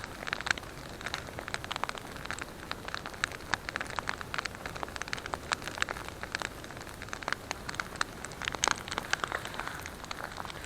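Wood campfire crackling: a dense, irregular run of sharp pops and snaps over a soft hiss.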